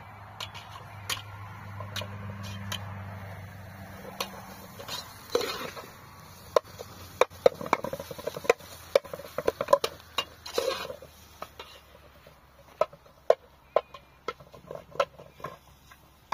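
Metal spoon stirring in a blackened cooking pot set over a wood fire, clinking and scraping against the pot in irregular runs, busiest in the middle and again near the end.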